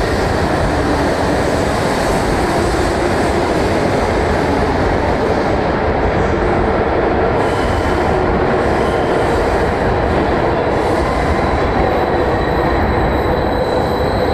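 E2 series Shinkansen train pulling into an underground platform: a loud, steady rumble of the train in the enclosed station. A faint high squeal joins in briefly about halfway through and again near the end as it slows.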